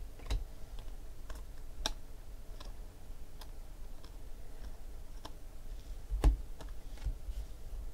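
Topps Chrome baseball cards being flipped and slid one behind another in the hand, giving light, irregular clicks and ticks. A louder tap comes about six seconds in.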